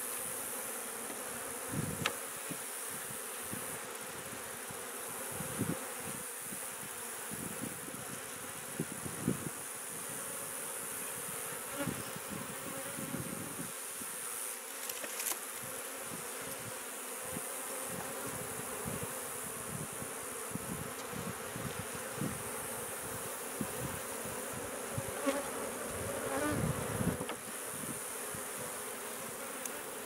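Honey bees buzzing steadily around an open hive, with a few light clicks and knocks as a hive tool works the wooden frames.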